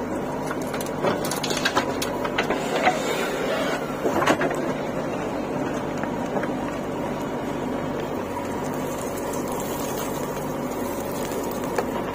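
JCB 3DX backhoe loader's diesel engine running steadily while the backhoe arm works. A few knocks and clatters come in the first four seconds or so.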